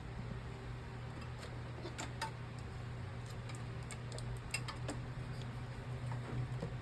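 Scattered light clicks and taps of small tools and parts being handled on a phone repair bench, over a steady low hum.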